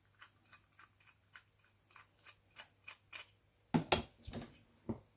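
Light clicks at about three a second as a small screwdriver picks debris out of a carburettor float bowl, then a few louder knocks about four seconds in as the tool is put down on the workbench.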